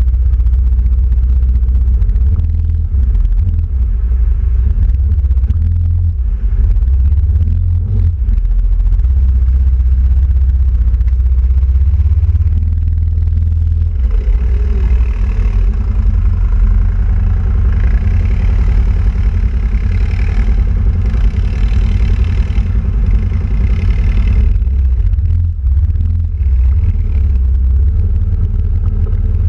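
Quad bike (ATV) engine running steadily as the quad is driven along a muddy track, heard close up from the machine itself as a low rumble. About halfway through it turns harsher and noisier for some ten seconds, then settles back.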